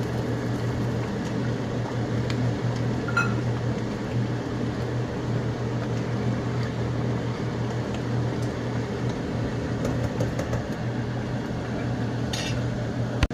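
Steady low hum with a few faint clinks of a spoon against the pan as the sutkeri masala mixture is stirred.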